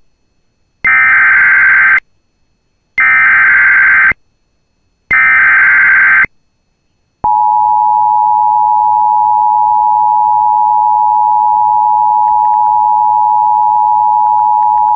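Emergency Alert System header: three short bursts of digital data screech, each about a second long and a second apart, then a pause and the steady two-tone EAS attention signal held for about eight seconds. The tones open a broadcast emergency alert, here a National Weather Service severe thunderstorm warning.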